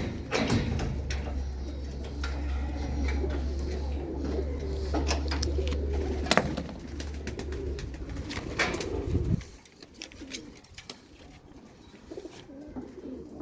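Domestic pigeons cooing in a loft, with scattered clicks and knocks; the cooing stops about nine seconds in and it goes quieter.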